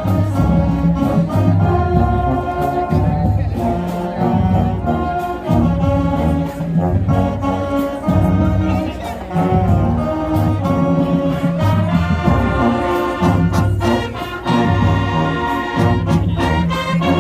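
High school marching band playing a loud brass piece, with trumpets and trombones holding chords over heavy low-brass bass notes and drum hits.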